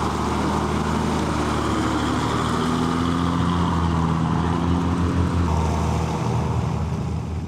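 Passenger bus engine running as the bus crawls past through mud, a steady low drone that eases off near the end as the bus moves away.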